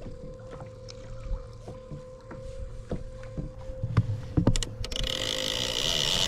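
Water slapping against a plastic kayak hull, with small knocks and a few sharper clicks. About five seconds in, a louder, steady rasping hiss sets in: the multiplier reel's clicker ratcheting as a fish bites and takes line.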